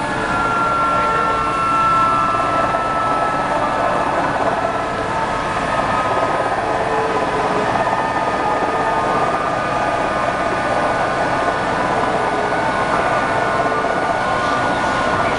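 Helicopter engine and rotor running steadily on the ground, heard from inside the cockpit, with a high whine that drops slightly in pitch during the first few seconds.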